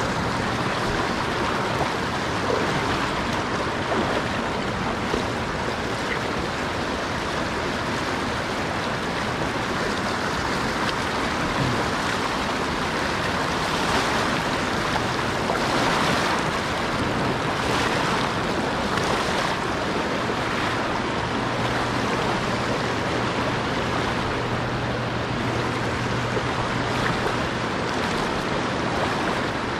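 Steady rushing of a fast creek riffle, with water tumbling and splashing over boulders close by. The rush swells a little in the middle.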